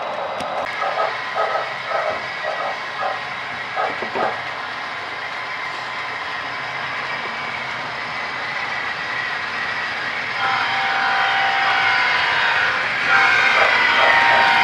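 Model freight train rolling past, its wheels clicking over the rail joints in a quick even rhythm during the first few seconds. From about ten seconds in, a model diesel locomotive's horn sounds and grows louder as the locomotives approach the crossing.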